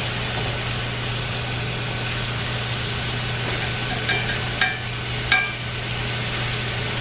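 Two seasoned New York strip steaks sizzling steadily in butter in a cast-iron skillet, over a steady low hum. A metal fork clinks against the pan a few times about four to five seconds in.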